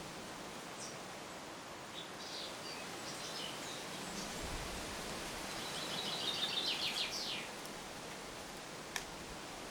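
Wild birds calling over a steady outdoor hiss: a few short high chirps, then a rapid trill of repeated high notes about six seconds in. A single sharp click near the end.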